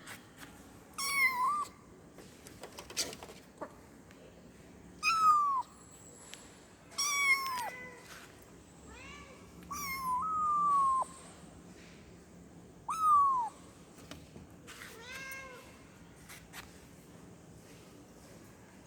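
Kitten meowing, the high-pitched contact call of a kitten calling for its mother. About six separate meows, each falling in pitch, with pauses of a couple of seconds between them.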